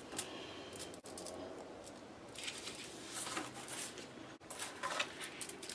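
Faint rustling and crinkling as sheets of construction paper are handled on an aluminium-foil-covered tabletop, in two short bouts around the middle and near the end.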